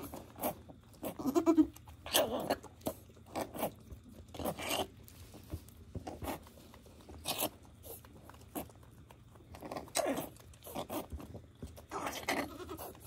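A Nigerian Dwarf goat gives a short, low bleat about a second in. After it come repeated rustling and crunching of straw bedding as the newborn kid is handled and cleaned.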